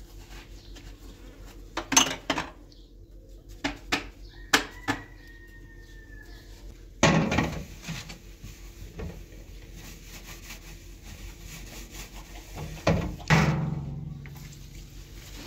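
Cooking pots and utensils being handled: scattered knocks and clinks, a few of them sharp. A metallic ring lasts about a second after one of them.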